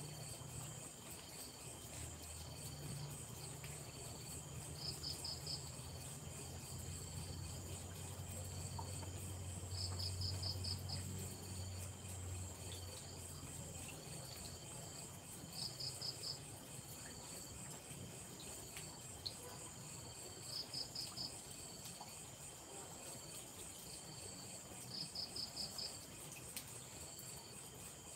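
Night insects, crickets, chirping: a steady high trill with a short burst of quick chirps about every five seconds. A low rumble swells and fades in the first half.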